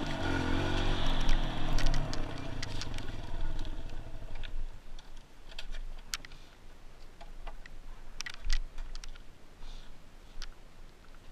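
Kawasaki KLX140G dirt bike's single-cylinder four-stroke engine running at low revs with a slightly wavering pitch, fading out about four seconds in. After that, only scattered sharp clicks and light rustling.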